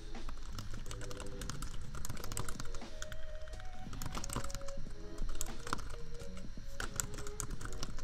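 Typing on a computer keyboard: irregular runs of keystroke clicks. Soft lofi music and a low laptop fan hum sit underneath.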